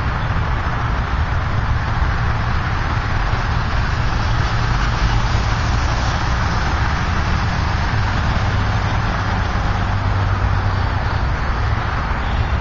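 Craftmade 52-inch patio ceiling fan running steadily: a constant rush of air over a low hum.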